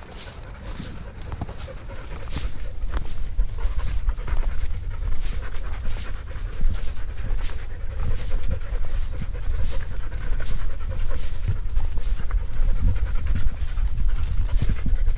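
Heavy, rhythmic panting, about two breaths a second, over footsteps on leaf litter and stones and a low rumble on the microphone.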